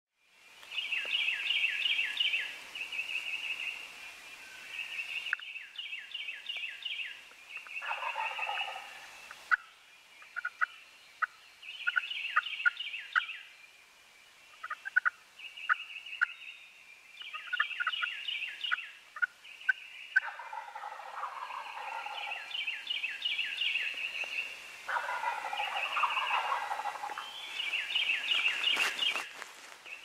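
Wild turkey gobblers gobbling again and again in the woods, over a higher, fast-repeating call and some sharp short clicks.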